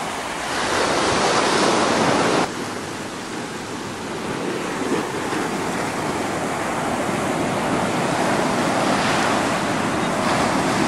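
Small ocean surf breaking and washing up a sandy beach: a steady rushing wash. It drops suddenly about two and a half seconds in, then builds again as more waves come in.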